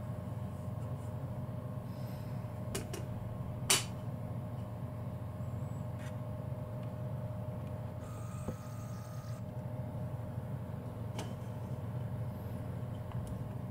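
A plastic cassette tape handled on a wooden table: a few light clicks, and a sharper knock a little under 4 s in as the cassette is set down. A steady low hum runs underneath.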